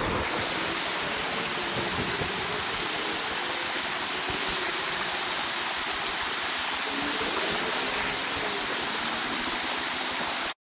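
Creek water rushing steadily over a shallow, rocky riffle, a constant hiss of running water that cuts off suddenly near the end.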